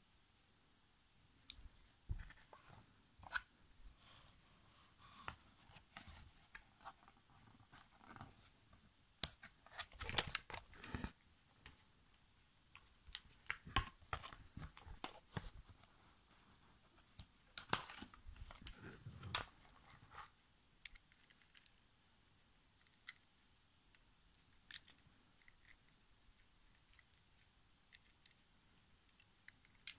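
Hands working a die-cast toy car loose from its cardboard display packaging: scattered faint clicks, scrapes and crinkles of card and metal. The noises come in irregular clusters, thickest in the middle.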